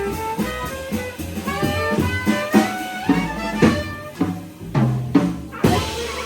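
Small jazz combo playing: a saxophone melody over drums and bass.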